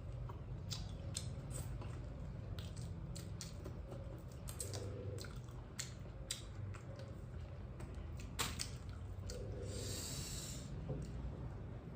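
Irregular clicks and crackles of food being handled and eaten, with a brief hiss about ten seconds in, over a steady low hum.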